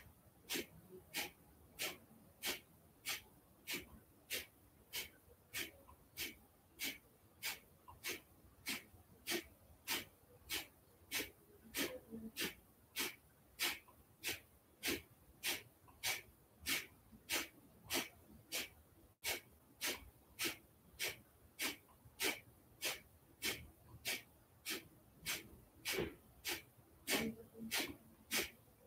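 Kapalabhati breathing: short, forceful exhalations snapped out through the nose at an even pace of just under two a second.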